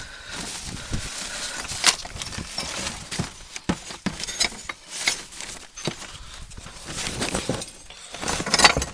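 Handling sounds: irregular clicks, knocks and rustling from work around a plastic tub of broken tiles and brick pieces, with footsteps and camera handling. A louder flurry of knocks comes near the end.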